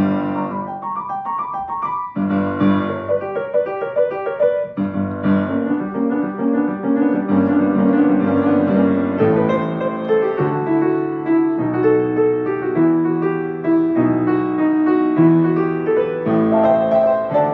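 Blüthner grand piano being played: quick runs of notes in the first few seconds, then slower chords under a melody.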